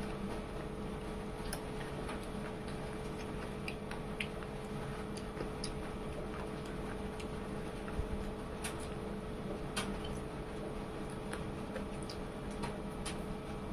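Eating by hand: scattered soft clicks and smacks from fingers picking meat off a chicken bone in curry on a plate and from chewing, over a steady low background hum.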